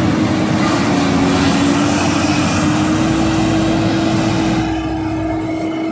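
Mitsubishi Triton pickup's engine held at high revs under heavy load as it climbs a slippery mud slope, one steady pitch, with the tyres churning through the mud. The rough churning noise eases about three-quarters of the way through while the engine note carries on.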